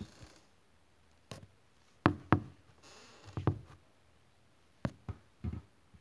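A run of sharp knocks and bumps, about seven spread over six seconds, the loudest pair about two seconds in, with a short breathy hiss about three seconds in.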